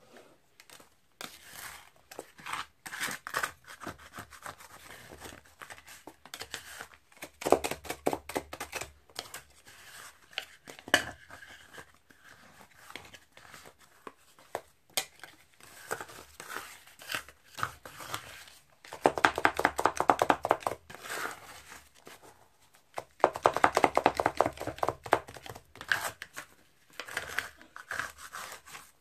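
Two plastic spatulas scraping and chopping cream and crushed Oreo cookies on the cold metal plate of an ice-cream pan as the mix freezes and thickens. There are louder runs of rapid chopping taps about a quarter of the way in and twice in the last third.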